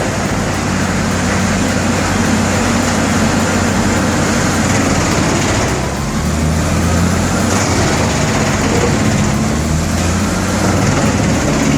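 Large industrial chipping and shredding machine running at work: a steady, loud engine drone under a constant dense grinding noise, easing off briefly about six seconds in.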